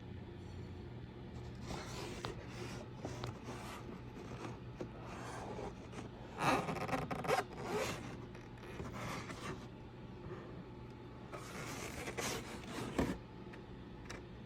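Engine air filter and its plastic airbox being handled: irregular scraping and rubbing, loudest about halfway through and again near the end, over a steady low hum.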